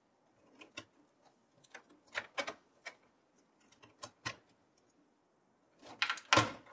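Scattered small plastic clicks and rattles of cable connectors being unplugged from a desktop PC motherboard and the wires being handled, with a louder cluster of clicks near the end.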